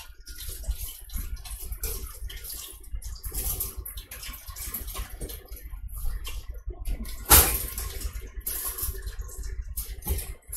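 Hot frying oil crackling and sizzling in irregular pops over a steady low hum, with one sharp knock about seven seconds in.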